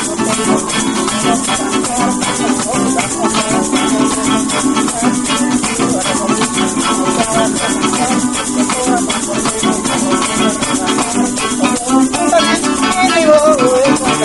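Venezuelan joropo music played instrumentally: plucked string instruments carry the tune while maracas shake in a steady, even rhythm.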